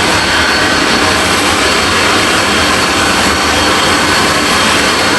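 Steady jet aircraft engine noise: an even rushing hiss with a faint high whine, unchanging in level.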